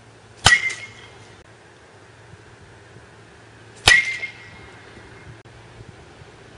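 Baseball bat striking a ball twice, about three and a half seconds apart, each a sharp crack with a brief ringing tail.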